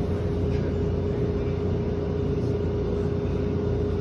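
Inside a SEPTA Route 10 trolley (a Kawasaki light-rail streetcar): a steady low rumble with a constant hum over it.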